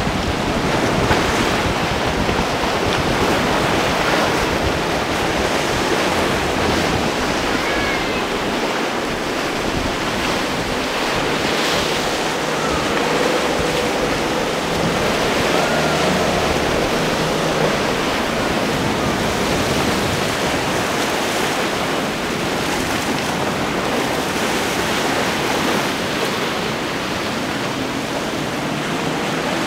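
Sea water rushing and splashing from waves and boat wakes, a steady loud rush of noise, with wind buffeting the microphone in low rumbles.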